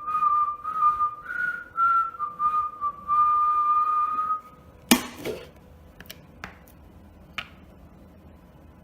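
A person whistling a short tune of several notes for about four seconds. Then a sharp knock and a few lighter clicks.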